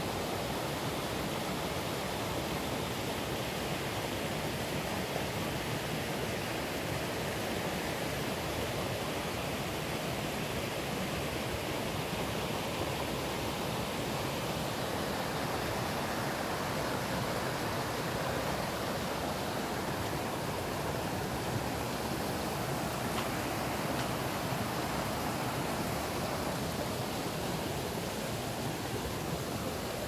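Valley stream running steadily: an even, unbroken rush of water.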